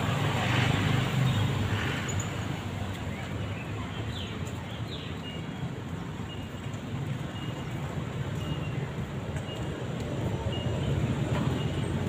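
City street traffic: a steady low rumble of passing engines and tyres that eases off mid-way and swells again near the end. A faint high beep repeats through the second half.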